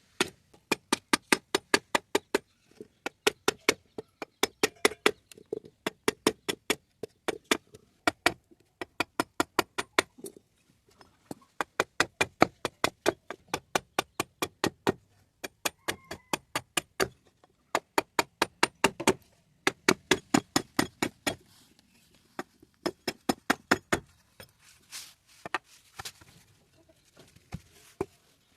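A blade chopping and shaving at a bamboo pole to pare it down, in quick runs of sharp strikes, several a second, broken by short pauses.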